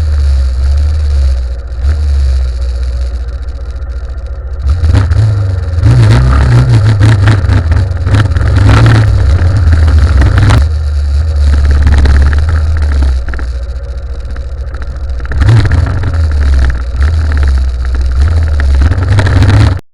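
Motorcycle engine running under changing throttle, its low drone swelling at about five seconds in and again later. The sound cuts off suddenly at the very end.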